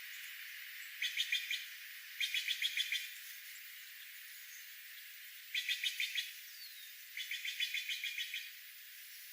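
A wild songbird calling in four short bursts of rapid, evenly repeated chirps, each lasting about half a second to a second, over a steady background hiss.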